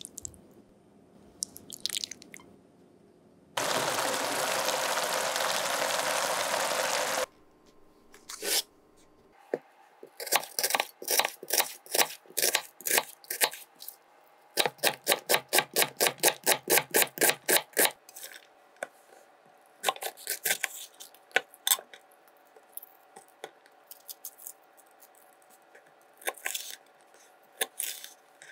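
Kitchen knife chopping on a wooden cutting board: a fast, even run of strokes, about four a second, mincing an onion, then slower, scattered cuts slicing a red chili. Before the chopping, a steady hiss lasts about four seconds.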